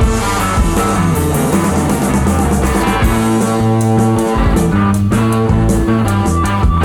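Rock music with electric guitar and drum kit playing at a steady beat.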